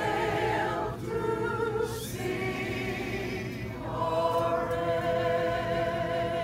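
Mixed group of older men's and women's voices singing a school alma mater together, holding one long chord from a little past halfway.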